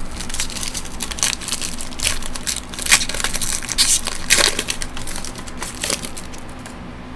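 Foil trading-card pack crinkling as it is torn open and handled, a dense run of crackles that dies away near the end.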